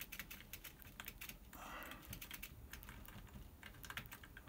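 Faint, quick, irregular clicking of computer keyboard keys, typical of keys tapped to step back and forth through animation drawings. About one and a half seconds in there is a brief soft rustle.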